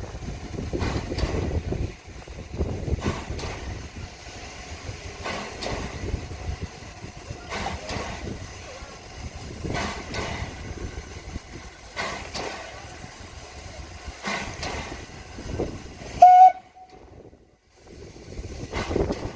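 Heritage train running along the line: a steady low rumble with a knock every couple of seconds from the wheels over the rail joints. About three-quarters of the way through there is one short, high, loud toot of the train's whistle, after which the sound drops out for a moment.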